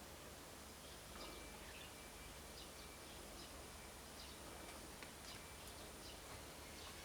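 Faint, scattered chirps of small songbirds over a quiet, steady background hiss; no cuckoo call.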